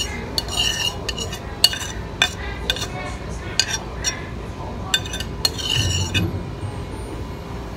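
Cutlery and dishes clinking at a dinner table: a string of about a dozen sharp clinks and taps, some ringing briefly, as food is spooned from plates into takeout containers.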